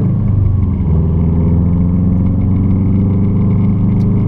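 Car engine and road noise heard from inside the cabin while driving: a steady low drone with an even engine note, which shifts briefly about a second in.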